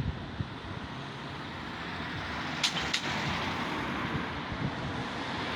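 Road traffic noise, a steady rush of passing vehicles that slowly grows louder, with two short clicks about halfway through.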